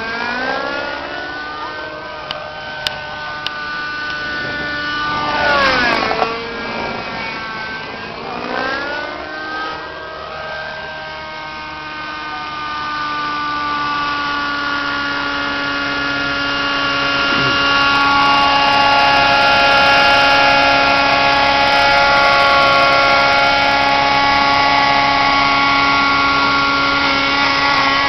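Thunder Tiger Raptor RC helicopter's engine and rotor, flying 3D manoeuvres. The pitch swoops down and up sharply through the first ten seconds. It then holds steady and grows louder as the helicopter settles into a low hover.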